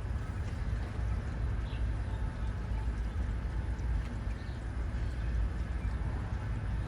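Steady low outdoor rumble, with a faint short bird chirp twice, a couple of seconds apart.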